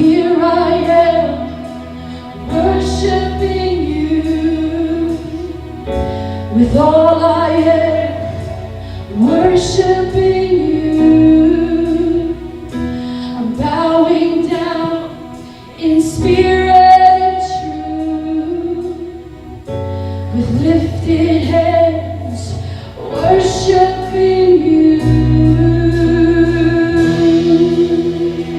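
Live worship band playing a slow song, with a woman singing long held phrases over sustained low bass or keyboard notes.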